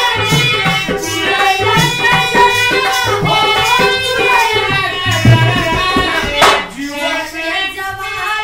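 Bhojpuri song playing: a sung melody over a hand-drum beat. About six and a half seconds in comes a short swish, then the drums drop out and the singing goes on more quietly.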